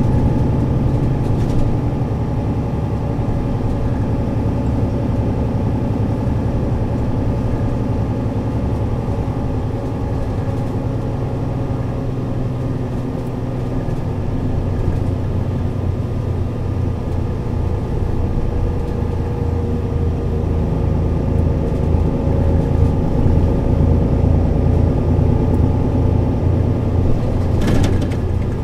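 Mercedes-Benz O 530 Citaro city bus's rear-mounted diesel engine running, heard from inside the passenger cabin. It is a steady low hum that grows louder over the second half with a faint rising whine. A brief knock comes near the end.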